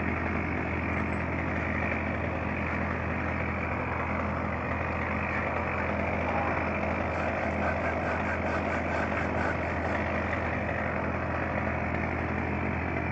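An engine idling steadily, an even low hum with no change in speed.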